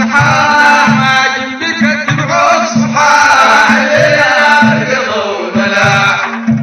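Sudanese Sufi madeeh chanted by men's voices, with a steady low drum beat about twice a second.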